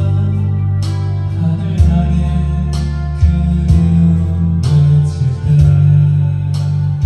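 Background music: acoustic guitar strummed in a steady rhythm over a bass line.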